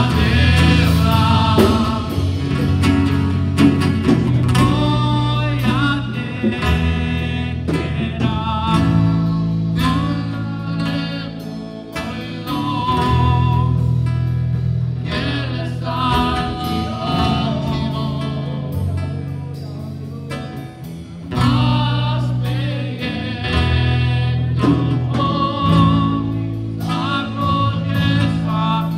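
Live worship song: a man's voice singing a melody with vibrato over guitar and keyboard accompaniment.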